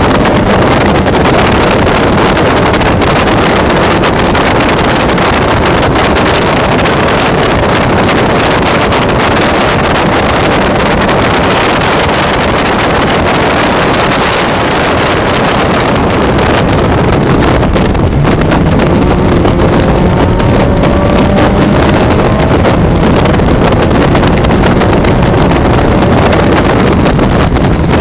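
Onboard sound of a VITA-01 race car's Toyota 1.5-litre four-cylinder engine at speed, accelerating along a straight to about 195 km/h, largely buried under heavy wind rush on the microphone. From a little past halfway the engine note comes through more clearly as a steady hum.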